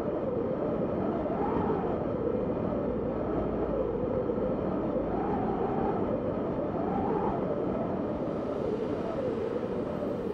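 Light aircraft's engine and propeller running steadily in flight, mixed with wind rush; the hum wavers slowly up and down in pitch every couple of seconds.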